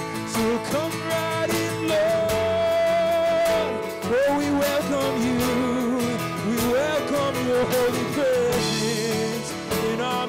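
Live church worship music: a sliding, held melody line with singing, over guitar and percussion.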